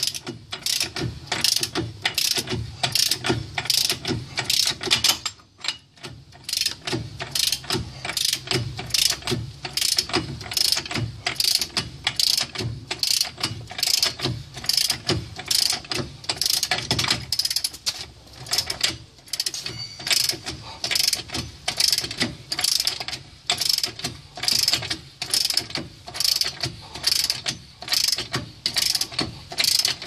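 Ratchet wrench clicking in regular back-and-forth strokes, about two a second, as it runs a 35 mm socket down the front axle nut, drawing the CV axle into the new wheel hub assembly. There is a short pause about five and a half seconds in.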